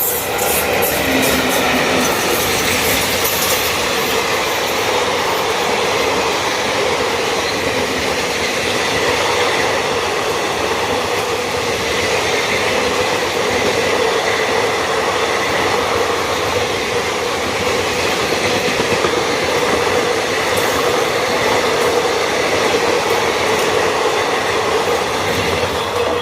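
An express passenger train running past close by: a loud, steady rumble and roar of wheels on rail, with rapid clicks over the rail joints in the first few seconds.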